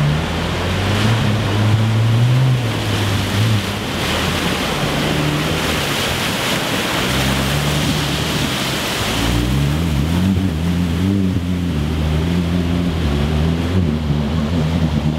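Jeep Wrangler Rubicon JL wading through lake water. Its engine runs at low revs, the pitch rising and falling, under the steady rush and splash of water pushed aside by the tyres.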